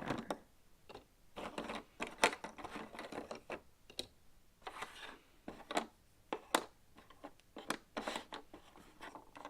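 Cardboard jigsaw puzzle pieces being handled and sorted, picked up and dropped into a cardboard box lid. The sound is a string of irregular light clicks and taps.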